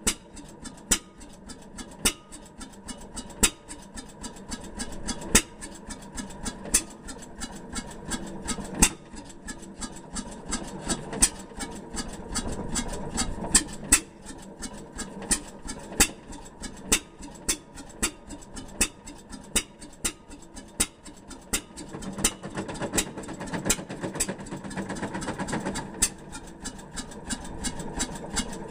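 Fairbanks hit-and-miss engine running, with sharp clacks every second or so over a steady mechanical clatter.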